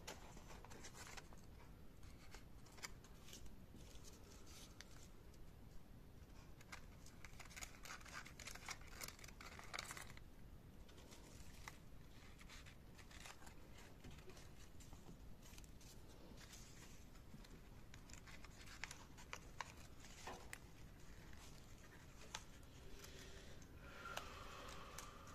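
Folded origami paper rustling and crinkling faintly as hands handle and press the paper pieces together, with scattered small clicks and a busier stretch of crinkling about a third of the way in.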